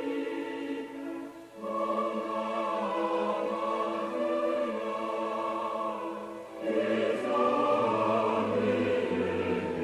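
Choir singing a Christmas hymn in long held chords, with short breaks between phrases about one and a half and six and a half seconds in.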